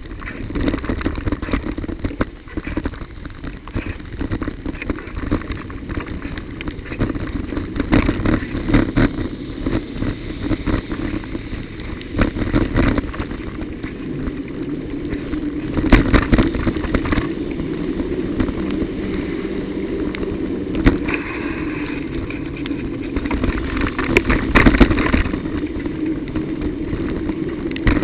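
Bicycle riding over a broken, wet road surface, heard through a bike-mounted recorder: a steady rumble of tyres and wind with frequent knocks and rattles as the bike hits bumps and holes. The hardest jolts come about halfway through and again near the end.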